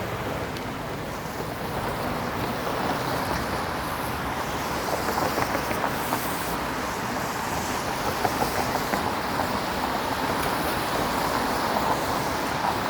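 Steady city street traffic noise, a continuous hiss of vehicles and tyres on a rain-wet road, with a few faint ticks.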